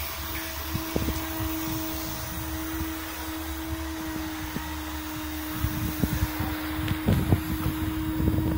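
Fortador steam-cleaning machine running with a steady hum and a constant tone. A scatter of light knocks and clicks comes in the last few seconds.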